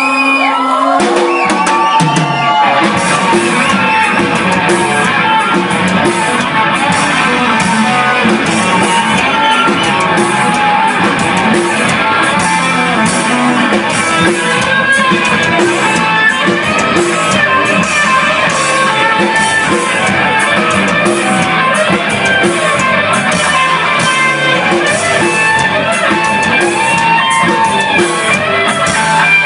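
Rock music: electric guitar playing over a drum kit with a steady beat.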